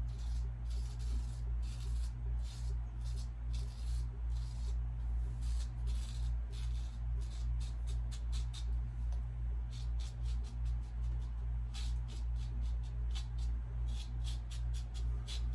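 Single-edge safety razor scraping through lathered stubble in quick short strokes, a run of rasps with a brief let-up about two-thirds of the way in, over a steady low hum.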